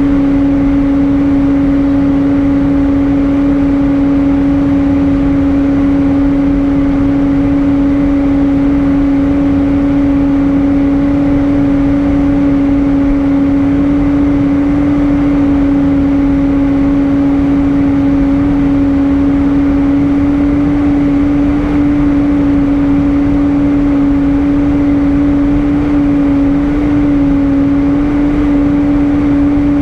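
Airbus A320 cabin noise in flight: a steady jet-engine drone with a strong, even hum over the rush of air.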